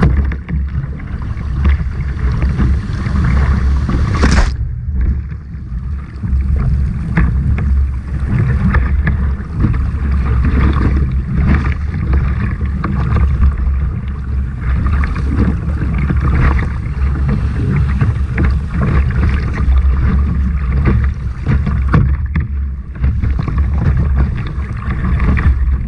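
Water splashing and sloshing around a surf kayak and its bow-mounted camera as it is paddled through surf, over a heavy low rumble of wind on the microphone. A sharp rush of water comes about four seconds in, after which the sound goes briefly muffled.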